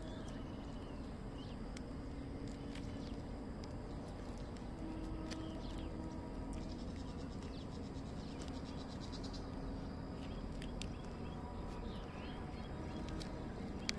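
Outdoor ambience: a steady low rumble with faint bird chirps now and then and a brief fast ticking trill about halfway through.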